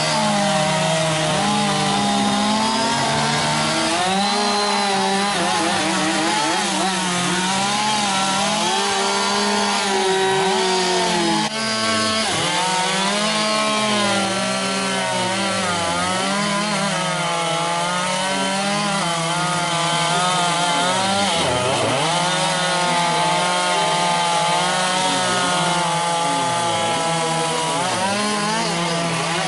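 Several chainsaws running at once as carvers cut into wood, each engine revving up and dropping in pitch as it bites into and clears the cut.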